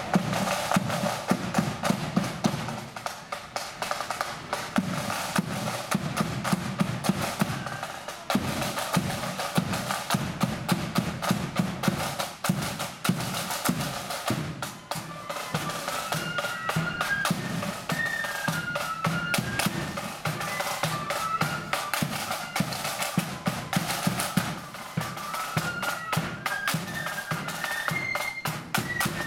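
A marching band's side drums beating a continuous marching rhythm with rolls. From about halfway through, a faint high melody joins the drums.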